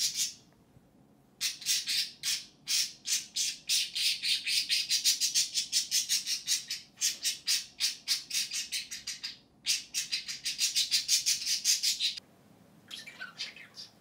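Budgerigar screeching in a tantrum: a rapid string of harsh, high squawks, several a second, in long runs with two brief pauses, ending in a few fainter calls.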